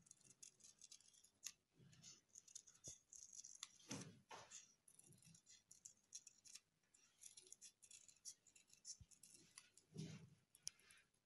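Small scissors snipping the corners off little squares of black paper, a faint, irregular run of short snips.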